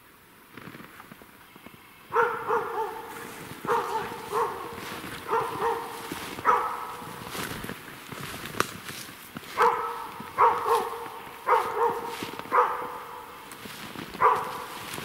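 Hunting laika barking repeatedly at a black grouse perched in a tree: runs of barks starting about two seconds in, with a short pause midway. The barking marks where the bird sits so the hunter can work round to it.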